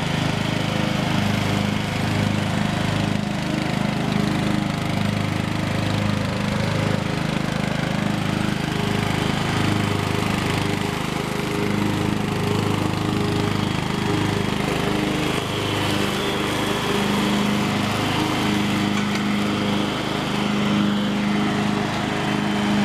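Riding lawn mower's engine running steadily as the mower is driven across the lawn, a continuous engine hum that grows stronger in the last few seconds as the mower passes close.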